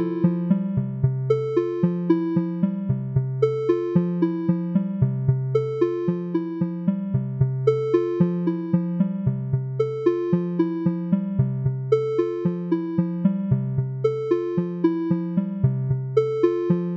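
Keyboard music with an electric-piano sound: an even, looping pattern of notes at about three a second over a repeating low bass line.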